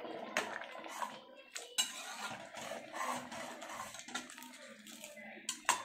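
A metal spoon clinking and scraping against an aluminium pressure cooker as turmeric powder is tipped into beetroot masala and stirred in. There are scattered sharp clinks, the loudest near the end.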